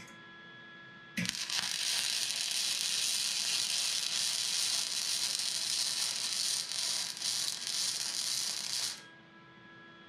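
Wire-feed welding arc crackling steadily as a bead is run on steel tubing. It starts abruptly about a second in and cuts off about a second before the end.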